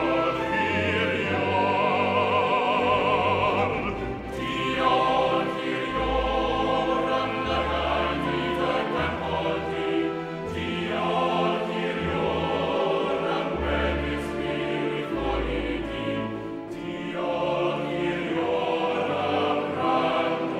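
Music: a Welsh-language hymn of praise sung in a classical style, with vibrato, over sustained accompaniment.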